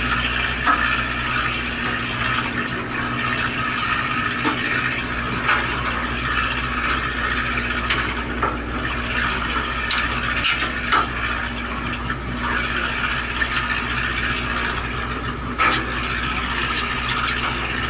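A fishing boat's engine running steadily with water washing against the hull, and a few light clicks and knocks.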